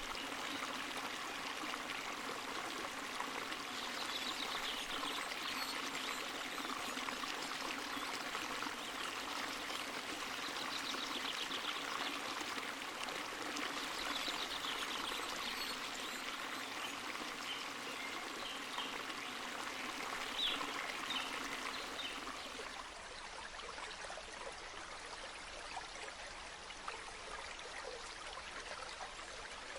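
Running water from a small spring or stream, flowing steadily. About three-quarters of the way through it becomes quieter and duller.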